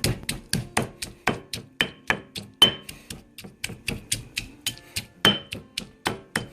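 Ginger being mashed with a utensil in a pot: quick, steady knocks, about four a second, some with a short metallic ring.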